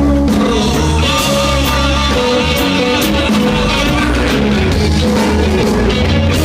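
Rock band playing an instrumental passage between sung lines, with a steady drum beat under sustained guitar and bass notes.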